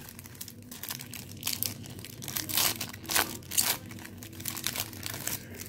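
Wax-paper trading-card pack wrappers crinkling and tearing as packs are handled and opened, in a string of short, irregular rustles.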